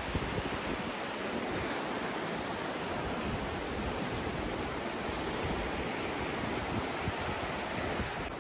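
Steady rushing noise of the Indus River in full flood, fast floodwater flowing past the bank.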